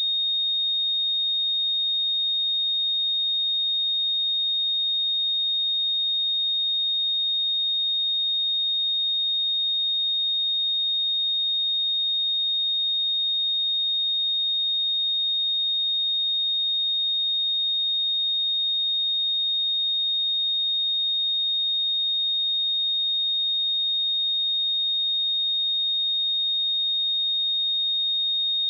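A steady, pure sine-wave test tone at 3705 Hz, a single high-pitched note held at a constant level without change.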